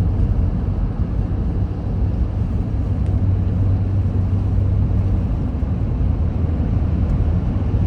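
Steady road noise inside a moving car on a snowy highway: a low engine and tyre rumble with a lighter hiss above it.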